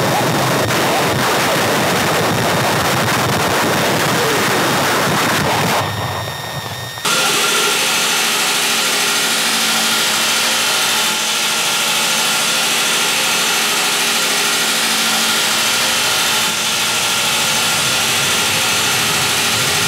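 Experimental noise music: a dense, steady hiss of noise that dips and breaks off about six seconds in, then after a second gives way to a steady drone of many held tones that sounds like a running machine.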